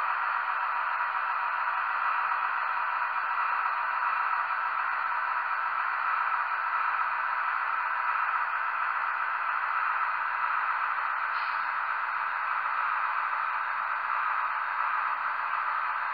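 Sound decoder of a Märklin H0 class 218 diesel model locomotive playing the diesel engine's running sound through the model's tiny speaker: a steady, thin hissing drone with no bass.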